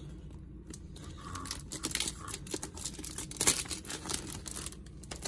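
Clear plastic shrink wrap crinkling and rustling as cardboard punch-out token sheets are handled and slid out of it, in irregular crackles with one sharper crackle about three and a half seconds in.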